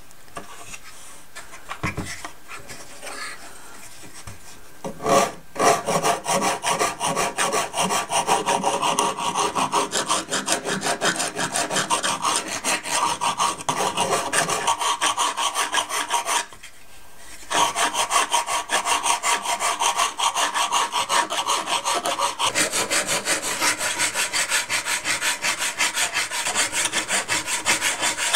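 A flat hand sanding stick rubbed in quick back-and-forth strokes along the wooden stringers of a model boat hull, fairing them to the line of the bulkheads. The scraping starts about five seconds in and runs on with one brief pause about two-thirds of the way through.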